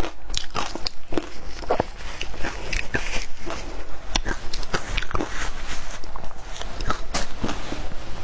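Ice being bitten and chewed close to the microphone: a dense, irregular run of crisp crunches.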